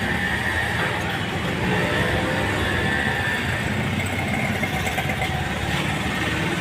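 Busy street ambience: motor vehicles running steadily, with faint voices in the background.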